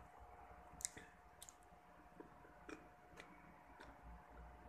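Near silence with a few faint, sharp, scattered clicks from someone eating crunchy green mango slices with her fingers, the loudest about a second in, over a faint steady hum.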